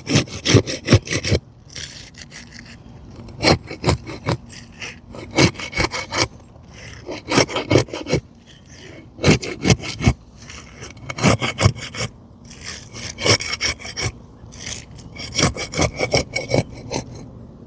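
Pry bar scraping and cutting through the tar sealant strip under asphalt roof shingles to unseal them: bursts of quick, sharp scraping strokes about every two seconds.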